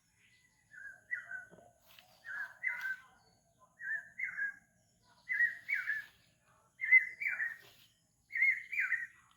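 A clear two-note whistled call, repeated six times about every one and a half seconds, each pair a little higher in pitch than the one before.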